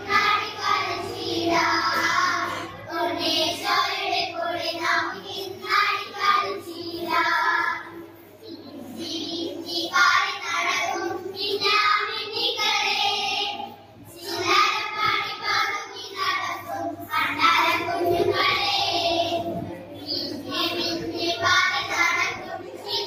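A group of girls singing a Christmas carol together into microphones, phrase after phrase with brief breaks between lines.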